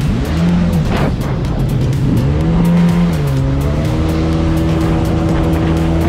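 Jet ski engine running under way, its pitch dropping and climbing back twice with the throttle in the first three seconds, then holding steady.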